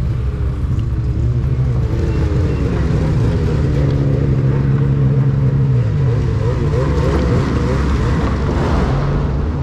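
Snowmobile engine running at low speed under light throttle, its pitch mostly steady, dipping about six seconds in and picking back up.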